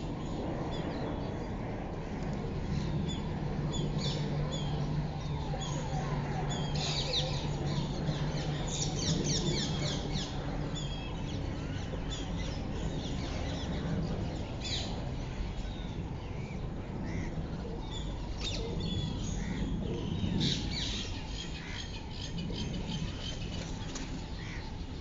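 Birds chirping and calling, with short scattered chirps and a few rapid clusters of calls, over a low steady hum that lasts for about the first ten seconds.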